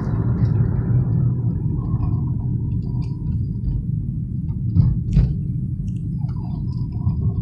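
Low, steady rumble of a car driving, engine and road noise heard from inside the cabin, with two short knocks about five seconds in.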